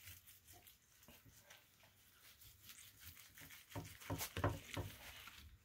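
Nitrile-gloved hands handling slices of roast prime rib on a metal pizza tray: faint rustling and light clicks, with a busier run of louder handling noises a little past the middle.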